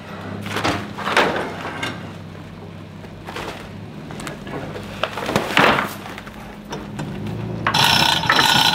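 A vehicle engine running low as the trailer is moved out from under a hanging feed tote, with several louder rushing, rustling swells over it. Near the end a one-ton manual chain hoist starts rattling and clicking loudly as its hand chain is pulled to lower the 1,000-pound tote.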